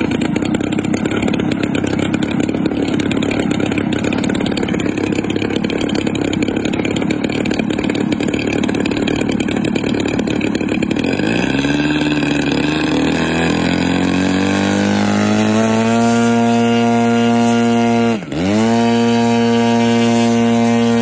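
Two-stroke engine of a large RC model biplane idling after a starter-motor start, then throttled up about halfway through in a rising whine to high, steady revs. Near the end the throttle is chopped for a moment and opened again before it drops back.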